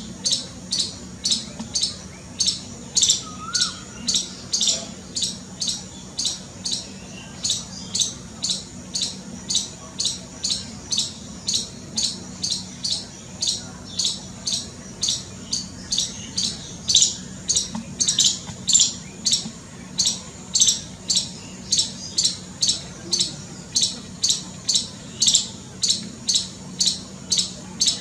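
Squirrel giving alarm calls: short, high-pitched chirps repeated steadily about twice a second, the calling of a frightened squirrel.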